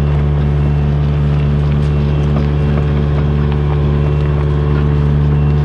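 Kubota U55-4 mini excavator's diesel engine running steadily at a constant pitch while it carries a heavy 36-inch concrete pipe, the machine working near the limit of what it can lift.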